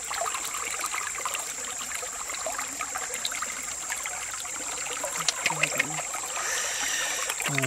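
Steady trickling, running water with many small wet clicks as hands pull eels out of the cut stomach of a large catfish. A thin, steady high tone runs underneath.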